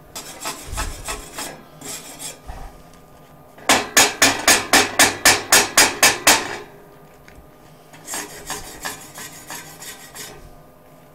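Steel wire brush scrubbed back and forth across a steel plate, brushing slag and spatter off a fresh weld. Light scattered strokes at first, then about three seconds of hard, fast strokes at roughly four a second, then lighter strokes again.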